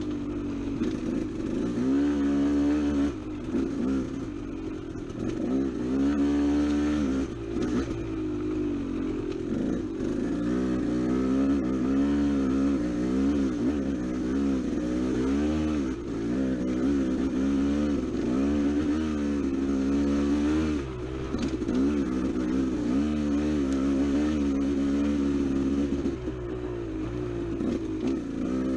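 Dirt bike engine running on a trail ride, its pitch rising and falling again and again with constant throttle changes.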